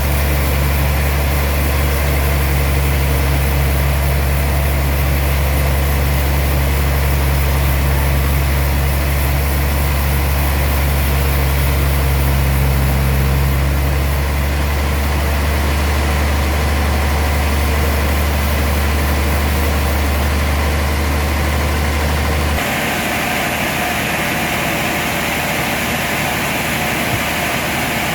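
Heavy sawmill machinery running steadily with a deep low hum. About 22 seconds in the hum cuts off, leaving a steadier, higher-pitched mechanical noise.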